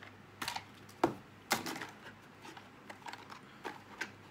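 Scattered clicks and taps of action-camera accessories and their packaging being handled on a table, the two sharpest a little after one second in and about half a second later.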